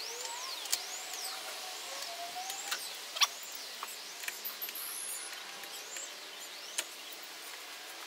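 Stiff T40 Torx screws on a Mazda MX-5's windscreen-frame soft-top latches squeaking as they are turned, a repeated high squeak that rises and falls about twice a second, with sharp clicks from the tool, the loudest a little after three seconds in.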